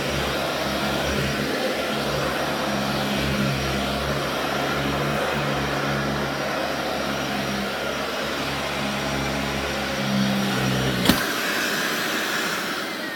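Dyson DC40mk2 Animal upright vacuum cleaner running steadily with a low hum. About eleven seconds in there is a sharp click as it is switched off, and the motor winds down with a falling whine.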